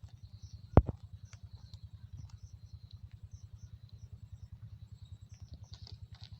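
An engine running steadily in the background, a low rapid thudding of about a dozen beats a second. A single sharp knock about a second in.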